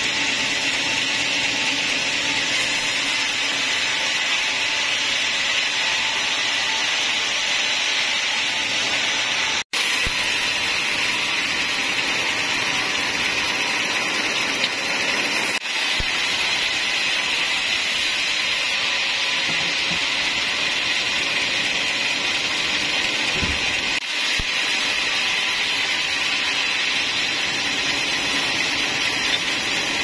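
Band sawmill's blade running and cutting a slab from a large log: a steady, loud high-pitched sawing whine and hiss. It cuts out for an instant about ten seconds in.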